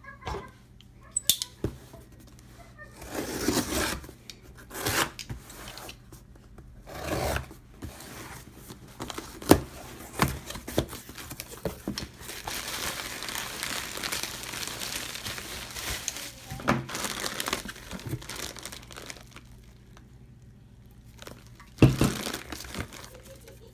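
Packing tape being ripped off a cardboard shipping box in several rasping pulls, then plastic bubble wrap crinkling and rustling as it is handled, with scattered clicks and a louder knock near the end.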